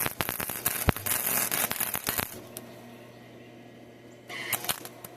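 Electric welding arc crackling and sputtering for about two seconds, then dying out and striking again in a short burst near the end: the arc keeps stopping, which the welder blames on a poor ground connection.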